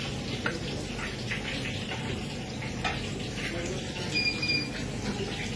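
Restaurant kitchen background: a steady rushing noise like running water or a burner, with a couple of light knocks as fried rice is served onto a ceramic platter, and a short high beep about four seconds in.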